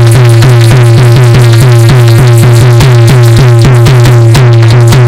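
Instrumental interlude of folk Dhola music: a fast, even repeated figure over a steady low drone.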